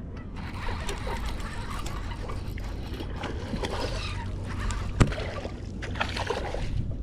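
Water splashing and lapping at the side of a fishing boat over a steady low rumble, with a sharp knock about five seconds in.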